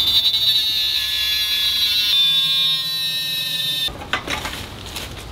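Metal-cutting saw screeching through a metal grate shelf: a loud, high, steady squeal for about four seconds that jumps in pitch about halfway and then cuts off, followed by a few short knocks.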